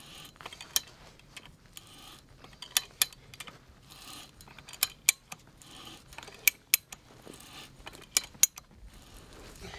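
Hand ratcheting pipe threader cutting new threads on the end of an old galvanized pipe: sharp ratchet clicks in pairs about every one and a half seconds, with a softer scraping between them as the handle is swung.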